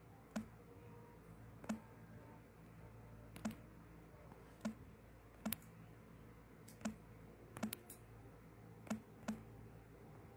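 Slow typing on a phone's touchscreen keyboard: about ten sharp taps at uneven spacing, roughly one a second, over a faint steady room hum.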